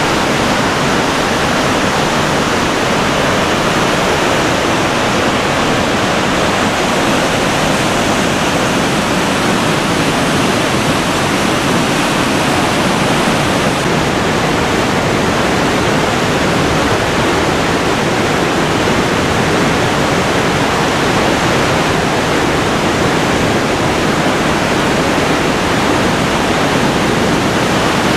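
Loud, steady rush of Box Canyon Falls, a waterfall pouring through a narrow rock canyon into a churning plunge pool.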